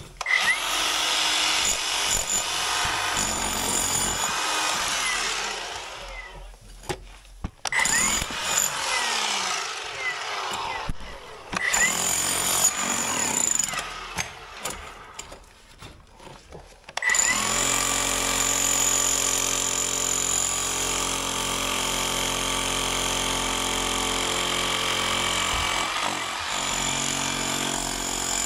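Electric breaker chiselling out old brickwork in a chimney flue, in three long bursts with short pauses. About seventeen seconds in, a cordless Milwaukee M18 angle grinder starts and runs steadily against the brick.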